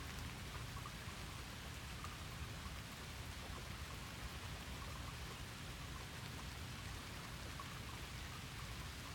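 Rain falling steadily: an even hiss with scattered drops ticking.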